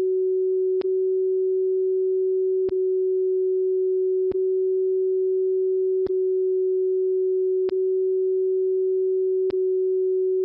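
Steady pure CW beat tone of a received time-station carrier on an Icom IC-7300 tuned 1 Hz above 10 MHz, with a brief click and dip about every second and a half to two seconds as the radio is switched back and forth between CW and CW-reverse. With the 1 Hz error the tone may shift a tiny bit between the two modes, the sign that the radio is off frequency.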